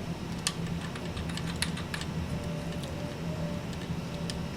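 A handful of light, sharp clicks and taps from a camcorder microphone and its mount being handled and fitted, over a steady low hum.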